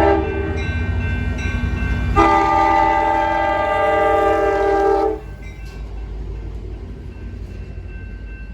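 Train horn sounding a multi-note chord: a short blast, then a long blast of about three seconds, over a low, steady rumble that carries on after the horn stops.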